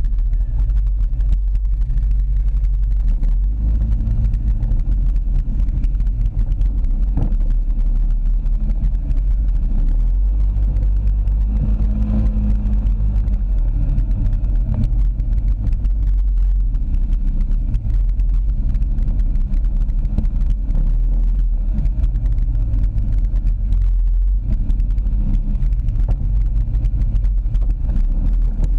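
ATV engine running steadily under way on a dirt trail, with a heavy low rumble throughout.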